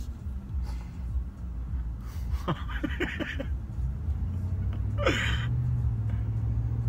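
Breathy laughter and gasps from a woman over the steady low rumble of a vehicle cabin on the road; a steady low hum joins the rumble about four seconds in.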